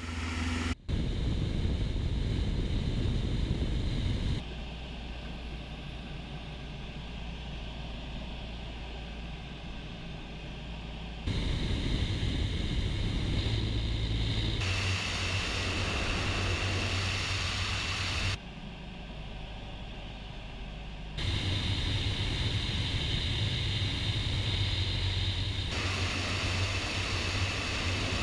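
Rushing airflow and the steady drone of a light single-engine propeller airplane in slow flight with its landing gear down, heard through outside-mounted microphones. The level and tone change abruptly several times.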